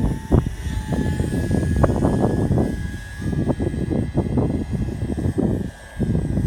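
Align T-REX 150X micro electric RC helicopter flying, a steady high motor and rotor whine under heavy wind buffeting on the microphone that comes in gusts.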